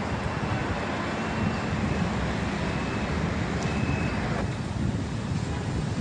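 City street traffic: cars passing on the road, a steady rumble of engines and tyres.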